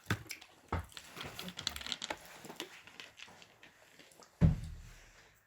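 Food handling and eating at a table: scattered small clicks, rustles and crinkles, with one louder thump about four and a half seconds in.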